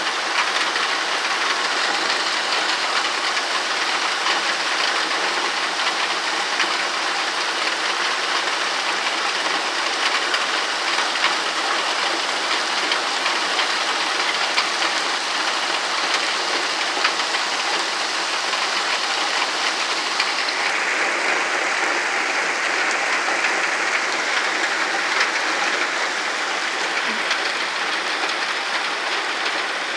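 Heavy rain pouring steadily during a thunderstorm, a dense even hiss with no thunder heard. Its tone shifts slightly about twenty seconds in.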